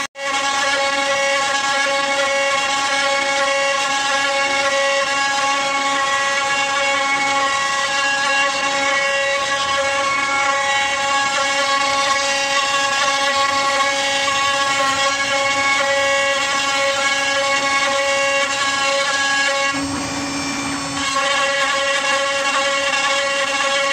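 CNC router spindle running at speed with a steady high whine while its bit carves into a wooden cutting board. About twenty seconds in, the whine thins for a second under a duller cutting noise, then comes back.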